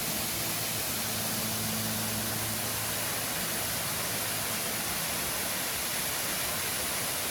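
Steady hiss of falling water from a small rock waterfall running low, with a thin flow after days without rain.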